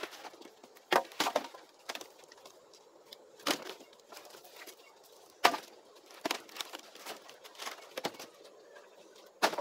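Dry wood being chopped and broken by hand: irregular sharp cracks and knocks, about ten of them, the loudest a little past halfway and near the end.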